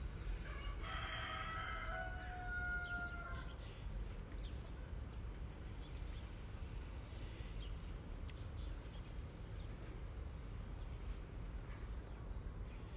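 A young kitten meowing once: one long, high call starting about a second in and lasting a couple of seconds, over a low steady background hum.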